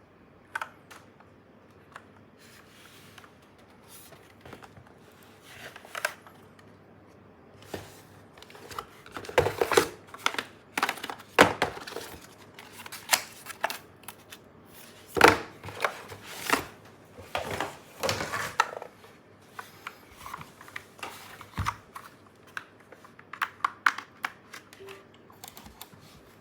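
Packaging being handled during an unboxing: plastic and paper crinkling, rustling and tearing in irregular bursts, with a few knocks.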